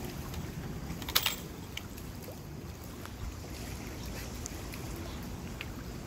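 Steady low rumble of the fast-flowing Niagara River. About a second in come a couple of sharp clicks.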